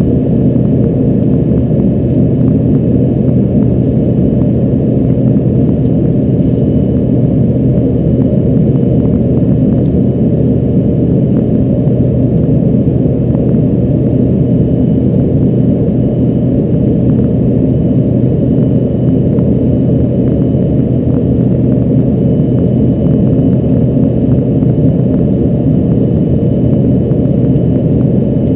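Steady, loud drone of an Embraer ERJ-145's rear-mounted Rolls-Royce AE 3007 turbofans and the airflow, heard inside the passenger cabin, with a low steady hum under a deep rush that holds even throughout.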